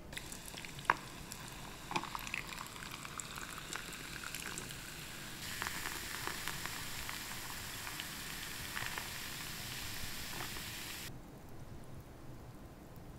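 Cola poured from a can over ice cubes into a glass, fizzing and crackling as it foams. Two sharp clicks come in the first two seconds; a louder steady pour runs from about five seconds in and stops sharply about eleven seconds in, leaving a quieter fizz.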